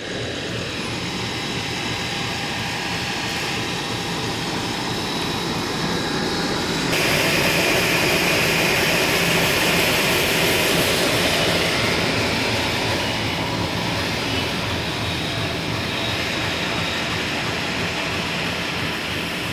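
Diesel locomotive hauling a track relaying train of loaded flat wagons past at low speed: a steady engine hum under the rumble of rolling wheels. About seven seconds in a louder hiss sets in as the locomotive comes alongside, then slowly eases.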